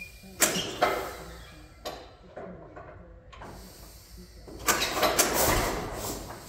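Old crawler tractor's large engine being turned over for a start, with sharp thumps early on and one louder burst about five seconds in as it fires once without catching and running.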